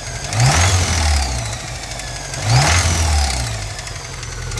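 VW Golf Mk2's four-cylinder petrol engine, hot, blipped twice about two seconds apart and dropping back to idle, with a heavy connecting-rod knock ("грохот", a racket). The knock comes from worn-through big-end bearing shells that let oil pressure escape.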